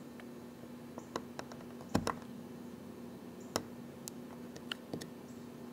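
Scattered light clicks and taps of fingers and a small oak dowel handling a white oak salt-cellar piece while picking at and peeling off blue tape, the sharpest tap about two seconds in. A faint steady hum runs underneath.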